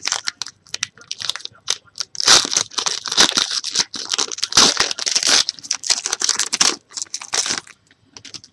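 A foil pack of 2012-13 Panini basketball cards being torn open, its wrapper ripped and crumpled in a dense run of sharp rustles that is loudest in the middle and stops shortly before the end.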